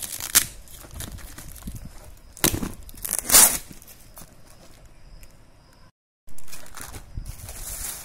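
A parcel's brown paper wrapping being torn open and crinkled by hand, in several short, loud rips, the longest about three and a half seconds in. The sound cuts out completely for a moment around six seconds, then quieter rustling of the wrapping follows.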